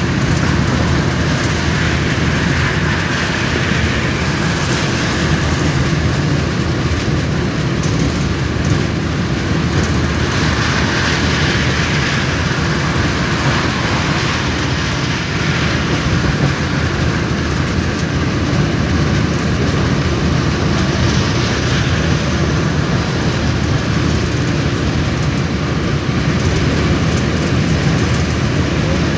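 Steady road and engine noise heard from inside a vehicle's cabin while it drives at highway speed, an unbroken rumble with no sudden events.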